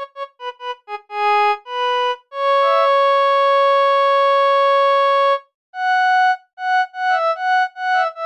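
Harmonium sound from a phone harmonium app playing a single-note melody: a run of quick short notes, one note held for about three seconds in the middle, a brief break, then quick notes again.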